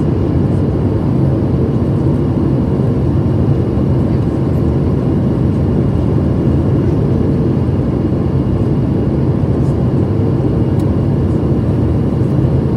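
Steady cabin drone of a Boeing 737-700 in flight, heard from a window seat over the wing. The CFM56-7B turbofans and the airflow make a low, even rumble with a faint steady hum and no change in pitch.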